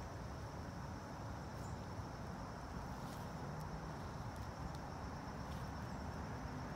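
A steady high-pitched insect chorus, crickets or their kin, over a low background rumble.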